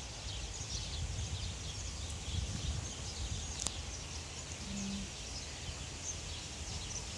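Outdoor ambience of small birds chirping in the background, many brief faint chirps throughout, over a steady low rumble.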